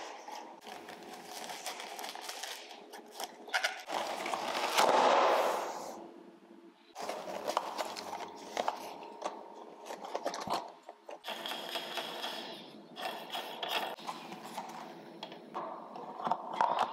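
Close handling of a small table lamp's parts: rustling of a pleated paper lampshade, with repeated light clicks and knocks of plastic socket pieces and the wooden base on a wooden table. The loudest rustle comes about five seconds in.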